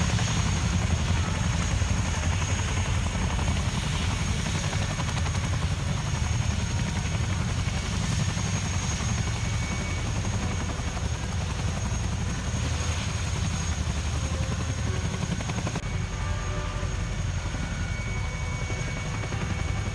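RAF military helicopters running, a steady heavy rotor beat with a thin high turbine whine above it.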